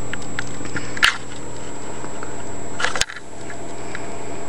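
Microwave oven running with a steady low hum, with two sharp clicks, one about a second in and one about three seconds in.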